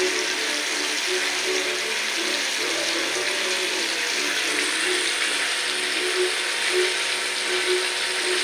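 Chicken pieces deep-frying in hot oil: a steady, dense crackling sizzle.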